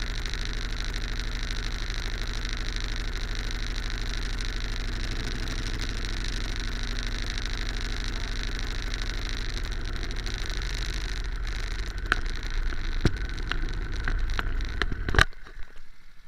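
Go-kart engine idling with a steady pulsing hum. From about eleven seconds in, a series of sharp knocks and clatter from the camera being handled on the kart, and the engine sound cuts off suddenly near the end.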